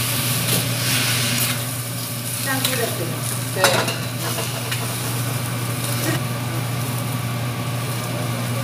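Vegetables stir-frying in a wok on a gas burner: a steady sizzle, with a metal spatula scraping and knocking against the wok as they are tossed. A steady low hum runs underneath.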